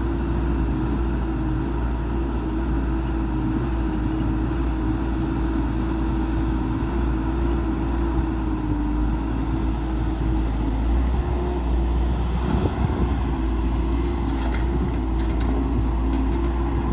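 Diesel engine of heavy construction machinery running steadily, a deep rumble with a steady whine on top that dips slightly in pitch now and then.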